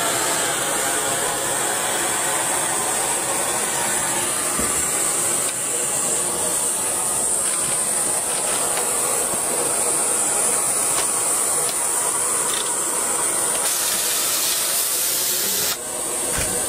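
Steady hiss of rushing air. About 14 s in it briefly grows sharper, then it dips for a moment and resumes.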